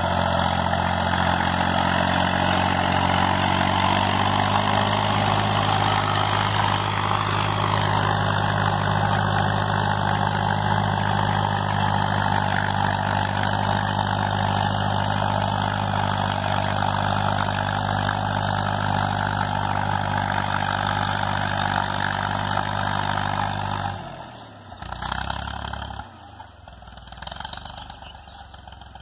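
Fiat 450 (U445) tractor's diesel engine running steadily under load while ploughing grassy ground. About 24 seconds in it drops suddenly to a much fainter, more distant engine sound, with a couple of short swells.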